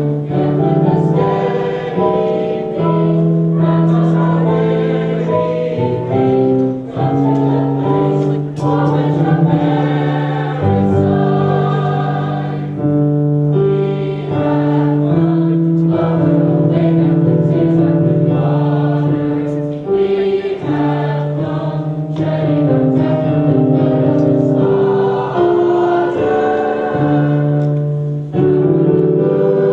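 High school choir singing in several parts, with long held notes that change in steps.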